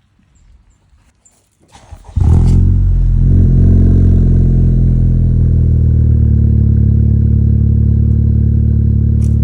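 Honda Civic Type R (FK8) turbocharged four-cylinder engine starting about two seconds in, then idling loud and steady through a catless front pipe, downpipe and HKS Legamax exhaust.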